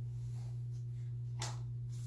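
Steady low hum with a single short click about one and a half seconds in.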